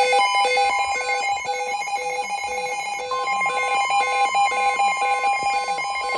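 Emergency Alert System alert tones: a fast repeating pattern of electronic beeps over a steady tone, with a second steady, slightly higher tone joining about three seconds in.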